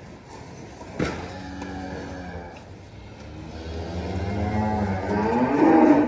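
Beef cattle mooing: a low moo after about a second, then a long moo that grows louder and is loudest at the very end. There is a sharp knock about a second in.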